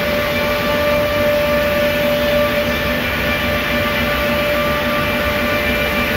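PRINZ CUTSTAR 11 kW lumber-package trimming station running, a steady loud mechanical noise with a constant whine through it.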